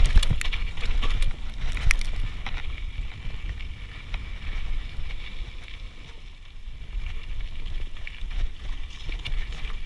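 Mountain bike riding over a rough, rocky dirt trail: wind rumbling on the bike-mounted camera's microphone, with scattered rattles and knocks as the tyres hit stones. It eases off briefly around the middle, about six seconds in.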